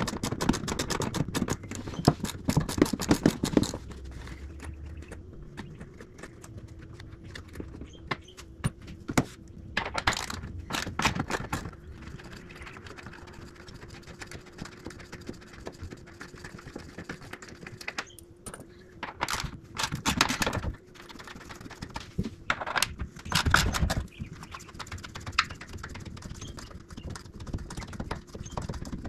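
Hand ratchet wrench clicking in quick runs as the Jeep Gladiator's hardtop bolts are loosened. The longest run comes at the start, and scattered clicks and light metal knocks fall between the runs.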